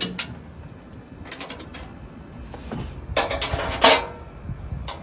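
A few short metallic clanks and rattles, in clusters about a second in and again past three seconds, as a rope is threaded and pulled tight to tie a riding mower down on a truck bed.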